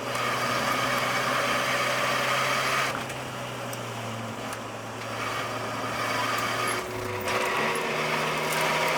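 Nissan 240SX (S13) four-cylinder engine pulling under throttle, heard from inside the cabin with road noise. About 3 s and 7 s in the engine note dips and settles at a new pitch, as with a throttle lift or gear change through the corners.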